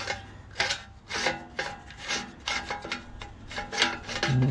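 Plastic recoil-starter pulley scraping and ratcheting in its housing as it is twisted back and forth by hand to seat it, in short strokes about two a second. A brief low hum near the end.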